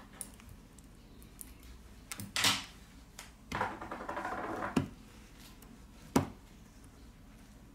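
Plastic pry tool working under a smartphone battery to free it from its adhesive: scattered sharp clicks and taps, a short scrape, then a crackling scrape of more than a second, with the loudest click near the end.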